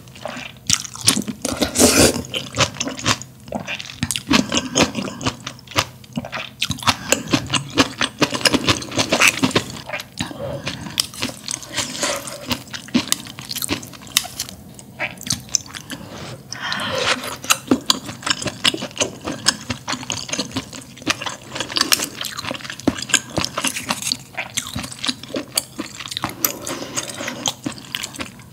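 Close-miked eating sounds: glass noodles slurped from spicy broth, then steady wet chewing with many small mouth clicks.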